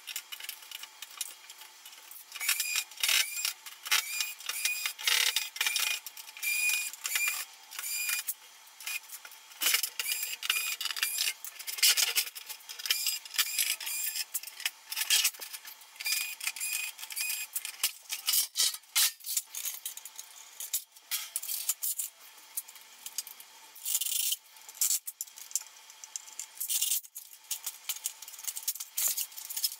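Fast, sped-up clatter of a stereo system being dismantled: rapid clicks, rattles and scrapes of screws, the metal casing and circuit boards being handled with screwdrivers. Short high-pitched whines repeat through the first several seconds.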